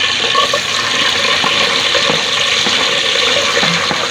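Sliced onion, garlic and ginger frying in hot oil in a pot: a loud, steady sizzle with a few faint pops.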